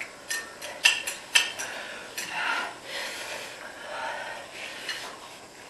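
Chopsticks clicking against bowls, several sharp clicks in the first second and a half, with softer sounds of noodles being slurped between them.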